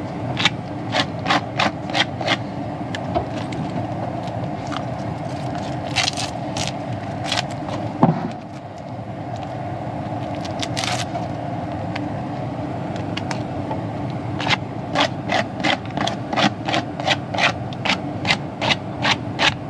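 Foil tape being rubbed down onto a sheet-metal furnace plenum: runs of quick scraping strokes, about three a second, near the start and again over the last five seconds, over a steady hum. A single sharp knock about eight seconds in.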